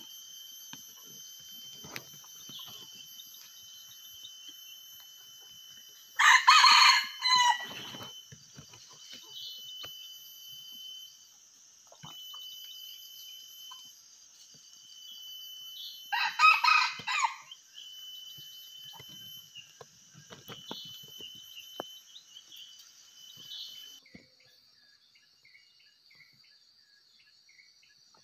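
Red junglefowl rooster crowing twice, about ten seconds apart, each crow lasting about a second and a half, over a steady high insect trilling.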